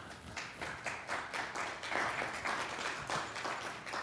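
Audience applauding: a dense patter of many hands clapping that builds about half a second in, holds, and starts to taper near the end.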